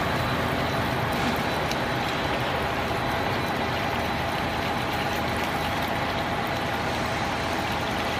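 Gantry CNC drilling machine boring into a steel tube sheet under flood coolant: the spindle and drill run steadily, making an even machine noise with a faint steady whine.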